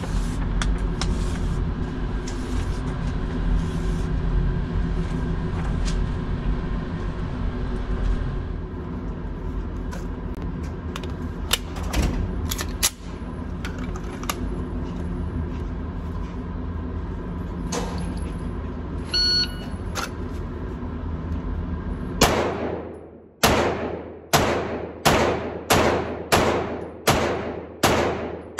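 A steady low machinery hum with a few scattered clicks. Then, about two-thirds of the way in, a string of about nine shots from a Canik SFX Rival 9mm pistol, fired at an even pace about 0.7 s apart, each shot ringing out with a short echo.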